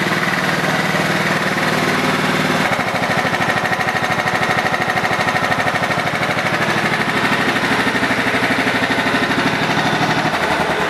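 Kohler Command 15.5 hp single-cylinder lawn tractor engine running steadily on a new ignition module, running good. Its tone changes about two and a half seconds in and again near the end.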